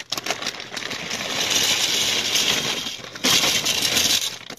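Dry egg noodles pouring out of a plastic bag into a pot, a dense rustling clatter of the pasta sliding and landing, louder again about three seconds in.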